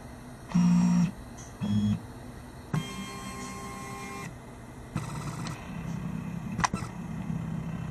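Stepper motors of a lab robot gantry driving the carriage along its ball-screw axes: a series of short motor whines of different pitches that start and stop, the loudest about half a second in, with a sharp click near the end.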